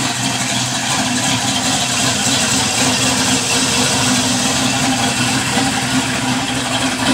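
Chevrolet Vortec 350 small-block V8 idling steadily.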